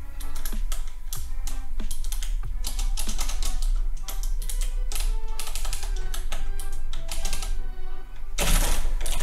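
Typing on a computer keyboard in irregular runs of keystrokes, over background music with a steady bass line. A louder rush of noise comes near the end.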